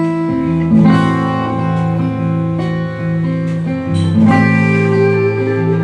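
A live band playing an instrumental passage without vocals: strummed acoustic guitar and electric guitar over drums, with a steady beat.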